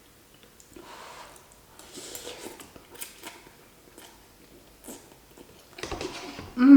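Close-up eating sounds: quiet chewing of instant beef ramen noodles with small wet clicks of the mouth. Near the end comes a short, loud, low vocal sound like a hum.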